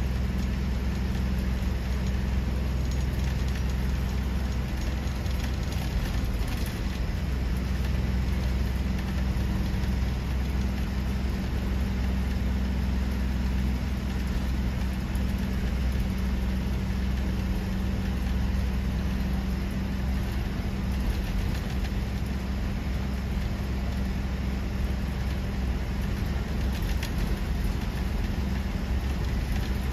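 Bus engine and road noise during the ride: a steady, unbroken low drone with a constant hum, without any change in speed or pitch.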